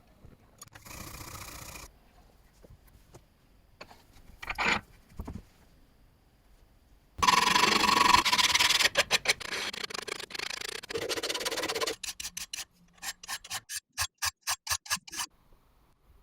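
Hand abrasive work on a restoration piece: rasping, scraping strokes. A few short strokes come first, then a loud stretch of quick rubbing, then a run of separate, even strokes at about four a second that stops near the end.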